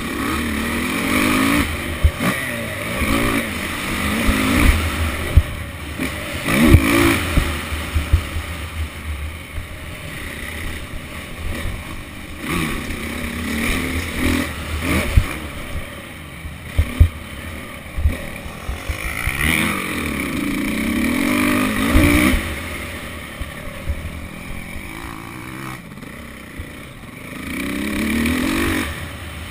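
Motocross dirt bike engine heard from on the bike, revving up and easing off again and again as it is ridden around the track. There are rumbling wind noise and frequent sharp knocks.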